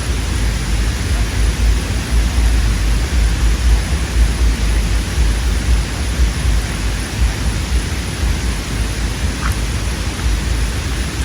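Wind buffeting the microphone: a steady rushing hiss with an uneven low rumble.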